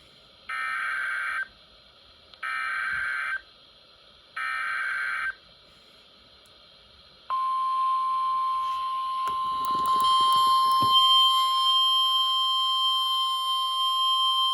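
Emergency Alert System SAME header: three one-second bursts of buzzy data tones about two seconds apart. About seven seconds in, the steady single-pitch National Weather Service attention tone starts and holds, announcing a warning.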